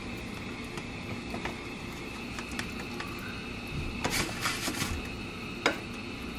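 A slotted spatula scraping and tapping against a glass baking dish as food is scooped out, with a scraping patch about four seconds in and a sharper knock near the end, over a steady background hum.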